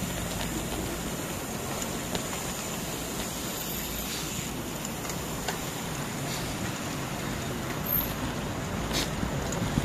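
Steady wind rushing over the microphone and tyre noise of a bicycle riding along a paved road, with a few light clicks near the end.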